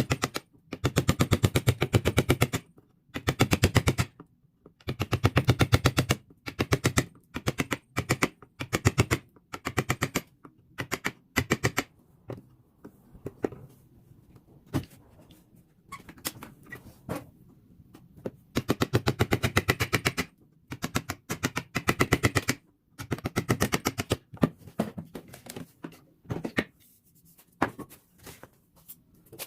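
Rapid-fire rattle of fast, even clicks in repeated bursts of one to three seconds, from work on the fork's metal.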